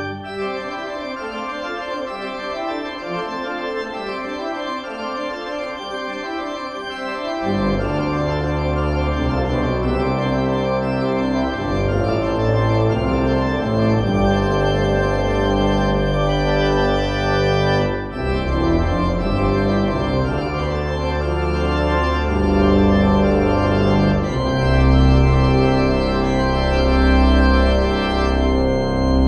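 Church pipe organ playing the postlude: held chords on the manuals, with deep pedal bass notes coming in about a quarter of the way through and the music growing louder toward the end.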